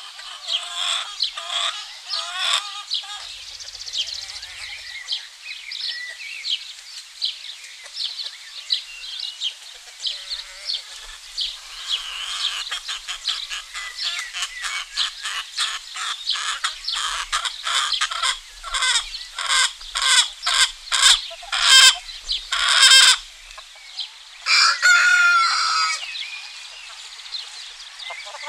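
Free-range chickens: hens clucking and a rooster crowing, with small songbirds chirping throughout. About two thirds in, a run of clucks comes faster and louder and ends in a long loud call, followed a moment later by another long call.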